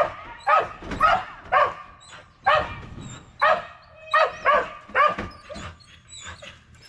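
Dog barking in a quick series, about two barks a second, breaking off near the end.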